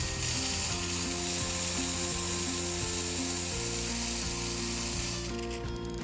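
Steam wand of a Baumann Professional espresso machine blowing steam with a steady hiss, at full pressure straight away. The hiss cuts off suddenly about five seconds in as the steam knob is closed.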